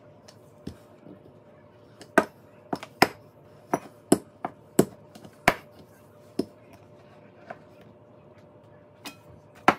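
Wooden rolling pin knocking and clattering against a laminate countertop while dough is rolled out. The sharp, irregular knocks come thickest in the middle, with one loud knock near the end.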